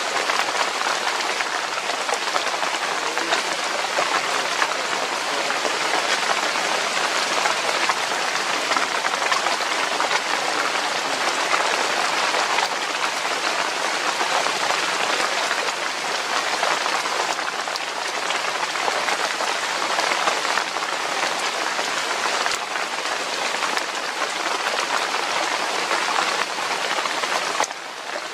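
Steady heavy rain falling on leaves and surfaces, a dense even hiss of drops.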